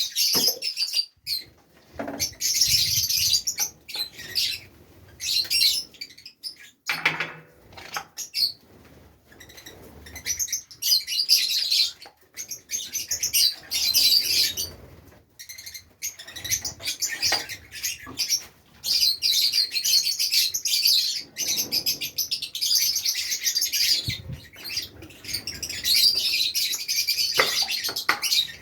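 A group of Fischer's lovebirds chattering in shrill, rapid chirps, in bursts of several seconds with brief pauses between them.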